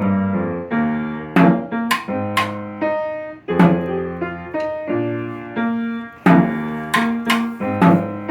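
Piano playing a band piece in a steady rhythm, struck chords and melody notes that ring and fade between attacks.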